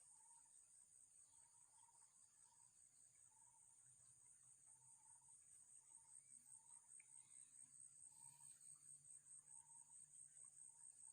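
Faint, steady high insect chorus, pulsing rapidly, which grows louder about halfway through. Underneath it, a faint short call repeats roughly once a second.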